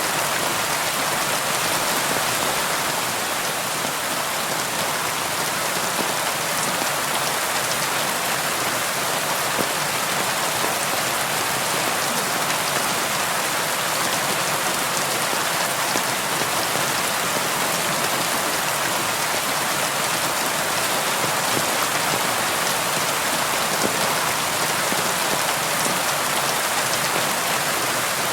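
Steady rain on a window, an even hiss dotted with small ticks of single drops on the glass.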